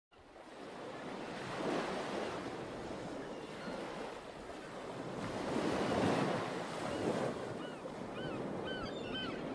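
Ocean waves washing in and swelling, with birds calling in short repeated chirps during the second half.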